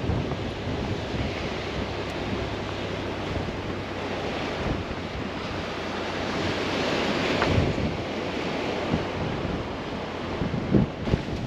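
Strong wind buffeting the microphone over surf breaking on a beach, the wash swelling in the middle, with a few low wind thumps near the end.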